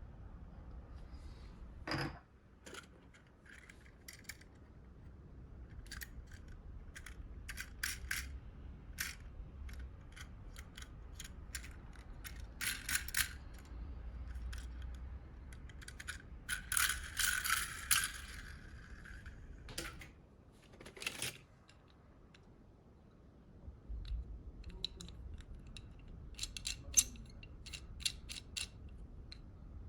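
Small die-cast toy cars being handled and rummaged through in a box, giving scattered metallic clicks and clinks, with a longer clattering rattle about halfway through.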